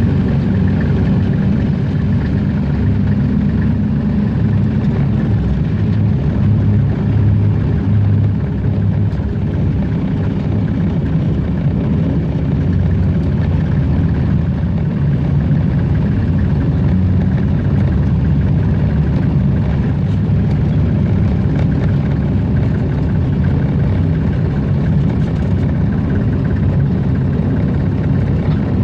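Hunslet narrow-gauge diesel locomotive's engine running steadily as it hauls the train along the line, heard from the cab.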